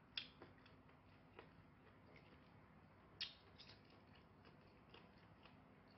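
Quiet eating sounds from a metal spoon and fork working at a steamed fish on a plate: scattered small clicks and mouth smacks, with two sharper clicks, one near the start and one about three seconds in.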